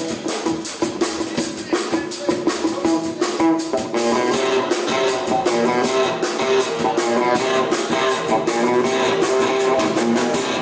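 Live blues-rock band playing: electric guitars strumming over a drum kit.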